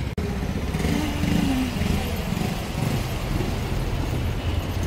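City street traffic noise: motor vehicles running by with a steady low rumble.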